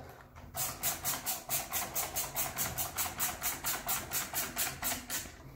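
Screwdriver driving self-tapping screws into the circular saw's plastic housing, with an even pulsing of about five strokes a second that starts about half a second in and stops shortly before the end.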